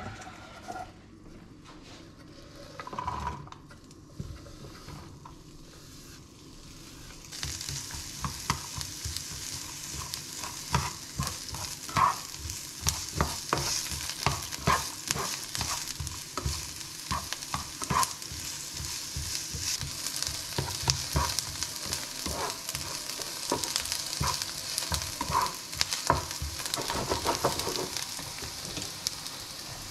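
Diced onions frying in hot oil in a skillet. The sizzle starts suddenly about seven seconds in, as the onions go into the pan, and carries on steadily. A spatula taps and scrapes against the pan again and again as the onions are stirred.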